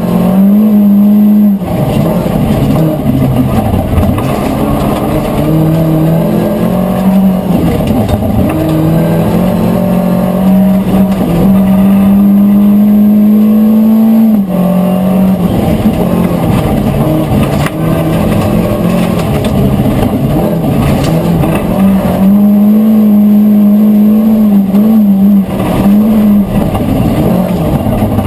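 Volvo 940 Group H rally car's engine at hard throttle, heard from inside the cabin: the revs climb and drop back in repeated steps through the gear changes, holding level for a few seconds about halfway through.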